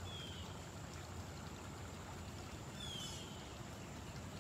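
Steady running water, with a short falling whistle-like bird call twice, once at the start and again about three seconds in.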